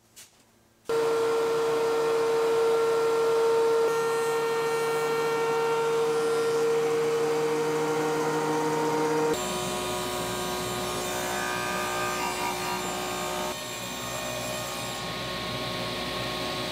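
DeWalt two-speed benchtop thickness planer running with its dust-collection hose, a steady machine whine as pine boards are planed down toward half-inch thickness. It starts about a second in and changes abruptly a few times.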